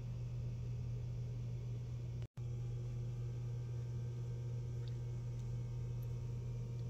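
A steady low hum, cut off for a split second about two seconds in.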